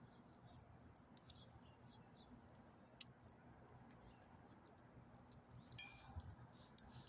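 Near silence with faint scattered small clicks and ticks, coming thicker near the end.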